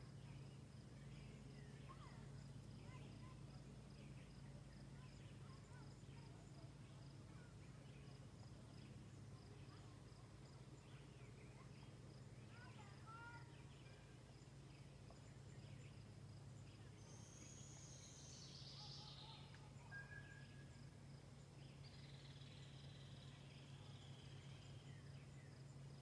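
Faint woodland ambience: scattered short bird chirps, with a busier run of bird calls in the last third, over a steady high insect trill and a low steady hum.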